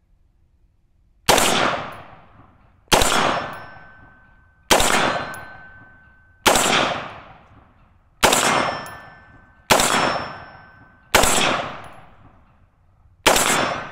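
Eight semi-automatic rifle shots from a Radical Firearms FR16 AR-15, fired at a steady pace about one every one and a half to two seconds. Each report trails off in a long echo, and a thin ringing tone lingers after several of them.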